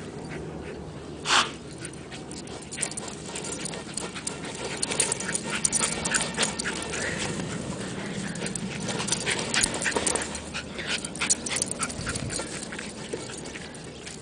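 A Russell terrier playing with a large ball on grass, its breathing and small dog noises mixed with many short scuffs and clicks that are busiest from about five to twelve seconds in. One louder, sharper sound comes about a second and a half in.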